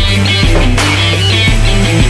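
Background rock music with a steady beat and held bass notes.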